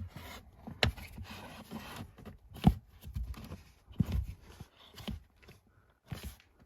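Metal sport pedal cover being slid and pushed on over a car's gas pedal: scraping and handling noise with about five sharp knocks, the loudest about two and a half seconds in.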